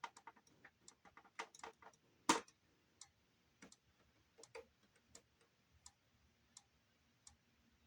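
Irregular light clicks and taps from a CD boombox being handled, its buttons and disc lid worked while it fails to read the disc; the strongest tap is about two seconds in.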